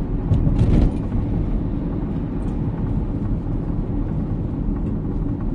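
Steady low rumble of road and engine noise inside a moving car's cabin, with a brief louder clatter about half a second in.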